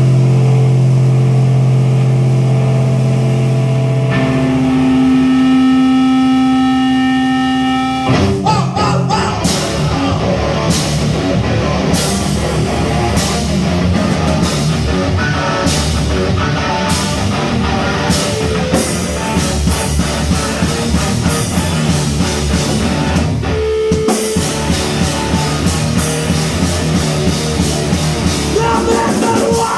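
Live rock band of electric guitar and drum kit. The guitar holds two long chords, then about eight seconds in the drums and guitar come in together and drive on with steady cymbal hits, with a brief stop about four-fifths of the way through.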